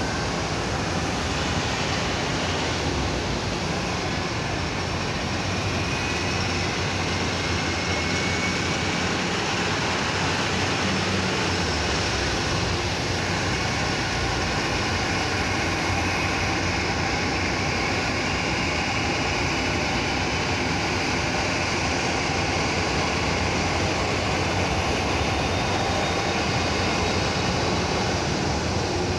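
Jet airliner's engines running as the aircraft taxis: a steady rushing noise with a faint high whine that slowly rises in pitch.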